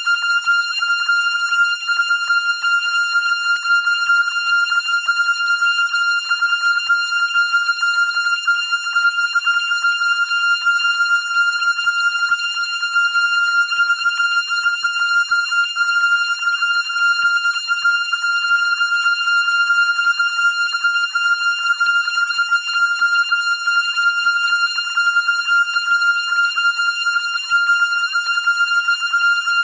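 A continuous high-pitched electronic tone, holding one pitch throughout with a slight fast flutter in loudness, like an alarm beep.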